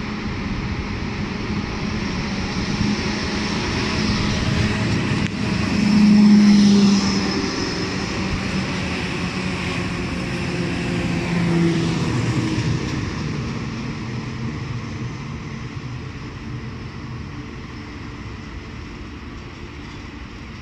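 Alstom Regiolis regional train passing close and pulling away. Its traction motors and running gear are loudest about six seconds in, with a whine that slides down in pitch as it goes by, then the sound fades steadily as the train recedes.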